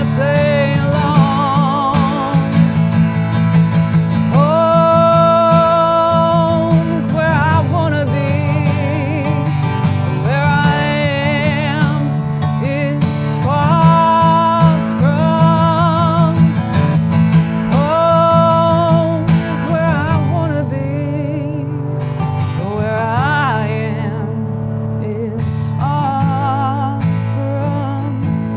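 A female voice singing a country-style song, holding long notes with vibrato and sliding between them, over a steadily strummed acoustic guitar.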